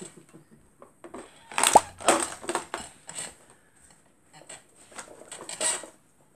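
Plastic blush compacts clattering and knocking against each other inside a clear plastic container as a baby grabs and shakes it, in a burst of clicks in the second and third seconds and another near the end.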